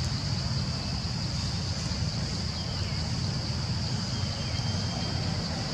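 Steady outdoor background noise: a low rumble under a continuous high-pitched drone, with no distinct event.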